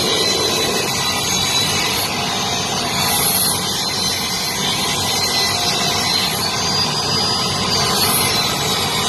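Table saw running steadily while boards are fed through its blade: a continuous machine noise with a faint high wavering whine.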